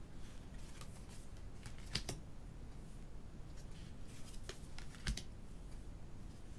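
Tarot cards being slid off the tops of two decks and laid down by hand. There are a few light clicks and rustles of card on card, the sharpest about two seconds in and again about five seconds in.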